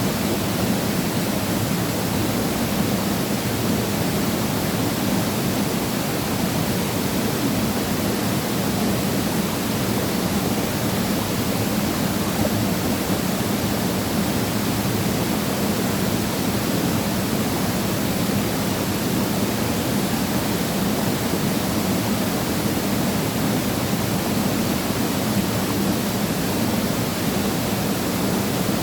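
Waterfall pouring steadily into a mountain valley pool, a constant full rushing of water with no change in level.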